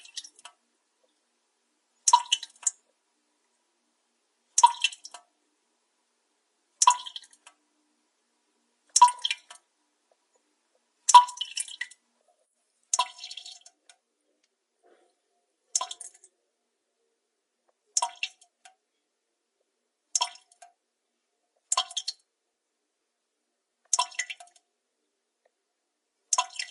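Water drops plinking, each fall a quick cluster of two or three drips, repeating about every two seconds with silence in between.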